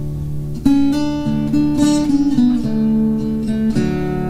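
Background music: acoustic guitar playing chords, getting louder with a strum about two-thirds of a second in and then changing chords every half second or so.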